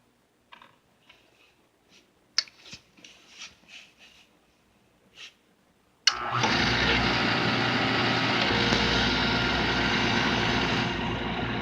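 A few light clicks and knocks, then about six seconds in the oil furnace's burner motor starts suddenly and runs with a loud, steady whir and a low hum. This is a restart attempt on a burner that won't pick up its diesel fuel properly, which the owner puts down to the cold, or to air or dirt in the line.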